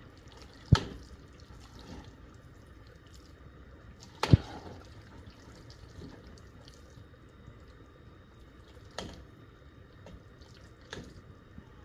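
Thick milk-based masala mixture simmering down in a pot, with a few sharp pops of bursting bubbles spaced several seconds apart, the loudest about four seconds in.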